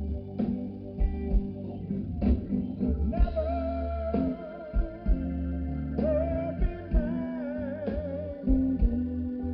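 Live blues band playing: electric guitar and bass over a steady drum beat. From about three seconds in, a long high note is held with a wavering vibrato.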